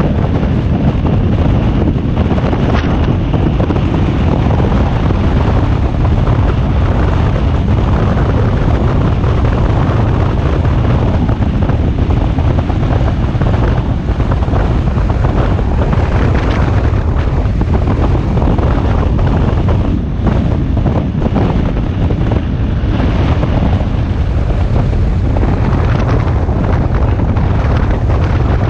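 Loud, steady wind noise buffeting the microphone of a camera on a BMW R1250GS Adventure motorcycle riding at road speed, a low rushing that never lets up.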